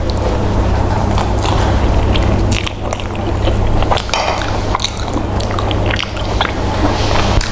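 Close-miked chewing and biting on a meal of fried chicken and rice, with many short wet clicks and smacks. A steady low hum runs underneath.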